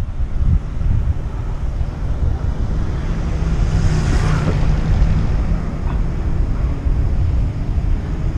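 Wind rumbling on the microphone of a camera riding along on a moving bicycle: a steady, loud, low buffeting.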